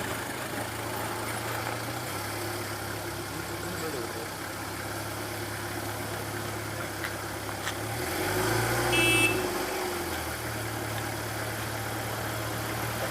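Mahindra MM550 jeep engine running steadily at low revs, revving up under load for about two seconds past the middle before dropping back. A brief high-pitched chirp sounds at the loudest point.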